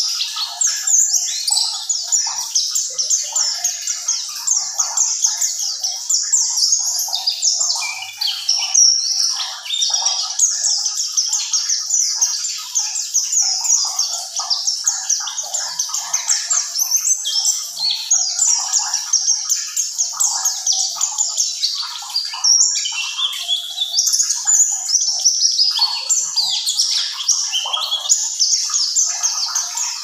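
Caged white-eye (pleci buxtoni) singing a long, unbroken rolling song ('ngerol') of rapid, high twittering notes, with short breaks about eight and twenty-two seconds in.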